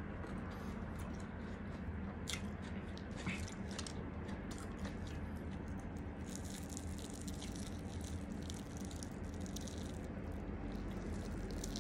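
Crunching and chewing on crispy breadcrumb-coated deep-fried chicken, with sharp crackles of the breading. About six seconds in comes a denser, longer crackling as a fried drumstick is torn apart by hand. A steady low hum runs underneath.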